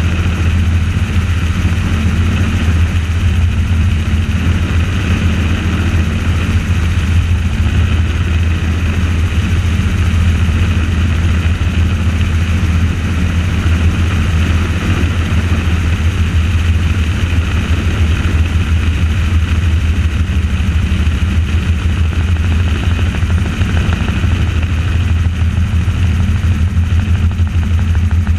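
Helicopter rotor and engine running steadily in flight, a loud, unbroken low drone picked up by the camera on board.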